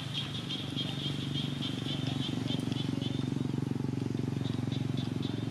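A motor engine running steadily, a low hum that grows louder about a second in. Over it comes a fast series of high, short chirps, about four or five a second, that fade out about three seconds in.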